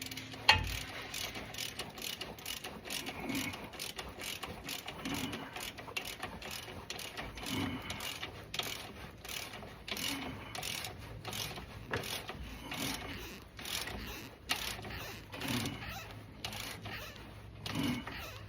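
Ratchet wrench clicking in repeated back-and-forth strokes, a swell of rapid clicks every two seconds or so as a fastener is worked on the underside of a Land Rover. There is one sharp metallic knock about half a second in.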